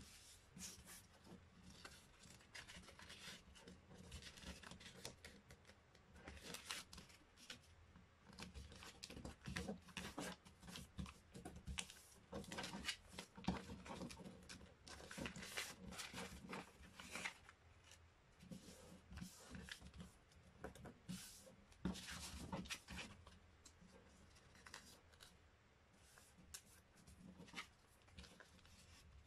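A sheet of paper being folded by hand into a paper airplane: faint, irregular rustling and crinkling, with short swipes as fingers press the creases flat.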